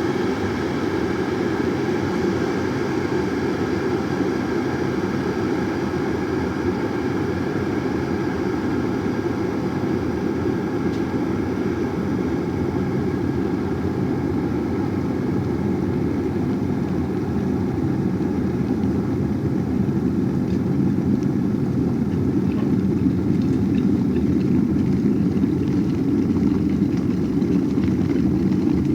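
Electric kettle boiling water: a steady, rumbling boil that grows a little louder about two-thirds of the way through.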